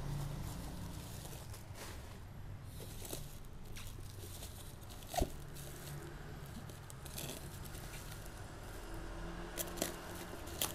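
Plastic bubble-wrap packaging rustling and crinkling as it is handled and slit open with a knife blade, with scattered light clicks, one sharper tap about five seconds in. A low steady hum sits underneath.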